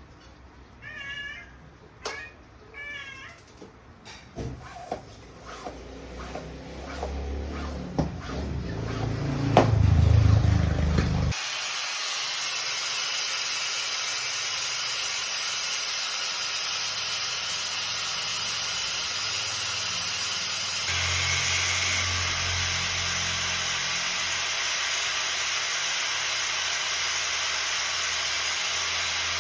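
A cat meows a few times in the first seconds, among light clicks and knocks. About eleven seconds in, a loud steady hiss starts abruptly and keeps going.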